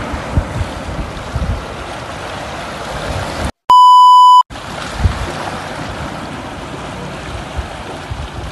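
Shallow sea water washing and splashing over shore rocks, interrupted a little under halfway through by a loud, steady test-tone beep lasting under a second, a colour-bar test-signal tone edited in. The water sound then resumes.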